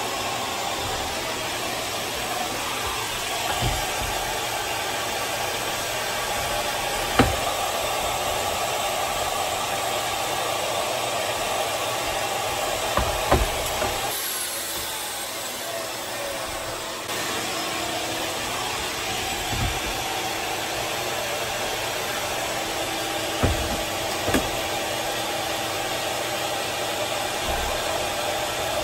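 Festool track saw with its dust extraction running, ripping 5/8-inch cabinet plywood along a guide rail: a steady whir and hiss, with several sharp knocks. The noise dips for a few seconds about halfway through, then comes back suddenly.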